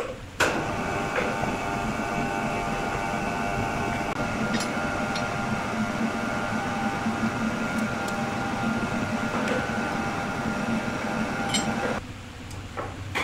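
Circular saw blade running through wood: a steady machine whine with a low hum, starting abruptly about half a second in and stopping about twelve seconds in.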